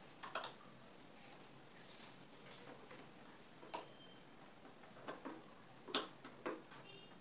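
Faint, irregular clicks and taps of the metal parts of a Butterfly sewing machine being handled around the needle and presser foot as lint is brushed out, about half a dozen in all, the loudest about six seconds in.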